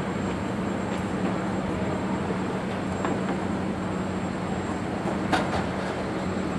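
Steady airport background noise: a constant low mechanical hum under a broad rush, with a couple of faint clicks near the end.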